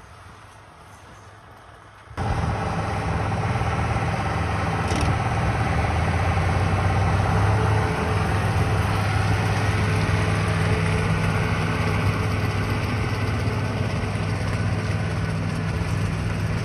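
Farm tractor engine and a pull-type direct-cut forage chopper running steadily, cutting in abruptly about two seconds in after a quieter stretch.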